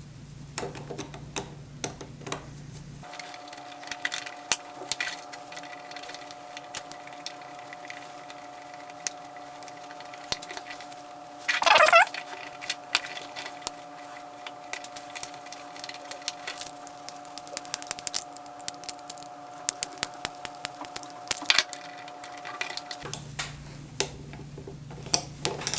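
An M3 screw being driven with an Allen key into stacked 3D-printed plastic gearbox plates: small, irregular clicks and ticks of the key and the parts being handled, with a louder clatter about halfway through. A faint steady hum sits underneath for most of the time.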